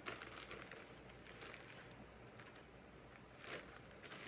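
Faint rustling and crinkling of a clear plastic bag being handled, with a slightly louder crinkle about three and a half seconds in.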